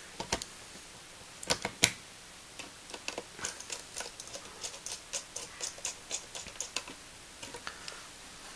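A very small Phillips screwdriver driving screws into a laptop screen's mounting points: a few sharp clicks near the start, then a run of light, irregular metal ticks, about three to four a second, as the screws are turned in.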